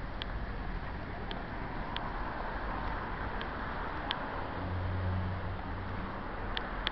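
Steady outdoor road-traffic noise, with a low vehicle engine hum swelling briefly about five seconds in, and light sharp clicks at uneven intervals of about a second.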